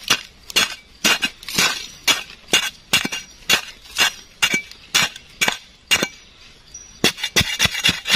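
A digging tool striking and chopping into sandy soil, about two strokes a second, with a short pause about six seconds in before a run of quicker strokes.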